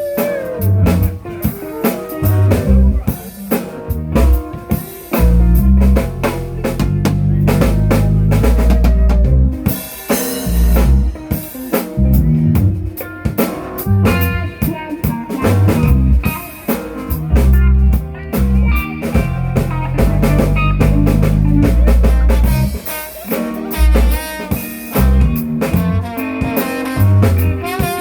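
A band playing with the drum kit to the fore: quick snare, rimshot and bass drum hits over a stepping bass line, with pitched instrument notes above.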